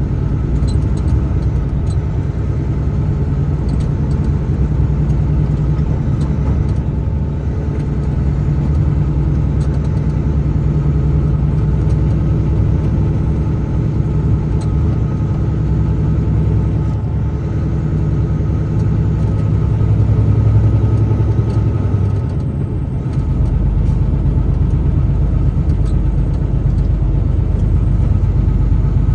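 Truck engine running steadily with road noise while driving. The low hum swells briefly about two-thirds of the way through, then settles into a deeper drone.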